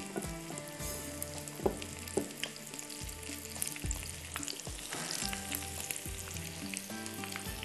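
Egg-and-flour-coated drumstick kababs shallow-frying in hot oil in a pan, sizzling and crackling steadily, with a few soft knocks.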